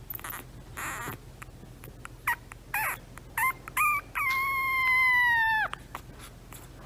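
Very young French bulldog puppy whining: a few short high squeaks, then one long drawn-out whine of over a second that dips slightly in pitch as it ends.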